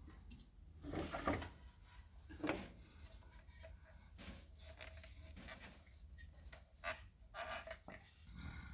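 Handling noises as spark plug wires are fitted: scattered clicks and knocks, with a few short squeaks as the rubber boots are worked into place.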